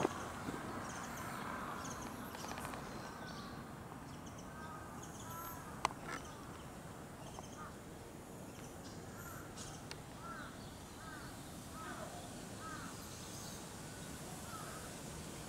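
A crow cawing, a long run of short arched calls repeated about once or twice a second, over a steady faint outdoor hiss. A single sharp click comes about six seconds in.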